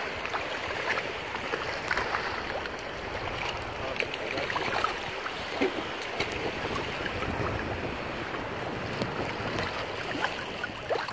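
Shallow sea water lapping and splashing, with wind: a steady rushing noise flecked with many small splashes.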